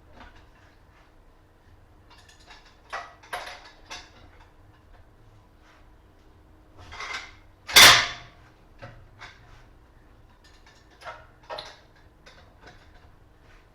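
Scattered metal clanks and knocks from work on a car wheel, with one loud, sharp bang about eight seconds in.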